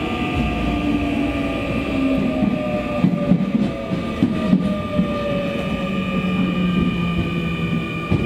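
Nankai 9000 series electric train running, heard inside motor car MoHa 9001: the VVVF inverter and traction motors give steady high whines plus a motor whine that falls slowly in pitch as the train slows, over a low wheel rumble. A few wheel clicks over rail joints come in the middle.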